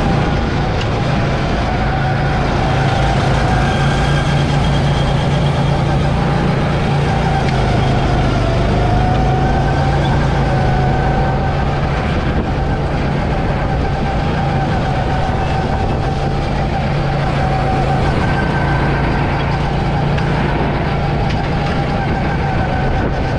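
Go-kart motor running at a steady, near-constant speed as the kart drives on, a steady hum with a slight dip in pitch about eight seconds in, over a constant rushing noise.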